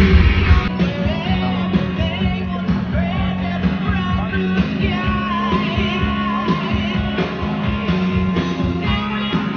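Rock-style music with a singing voice over guitar and a steady beat.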